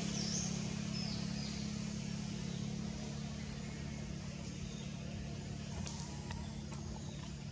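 Steady low drone of a motor vehicle's engine over a background hiss, fading gradually through the first few seconds. Two faint high chirps come within the first second and a half.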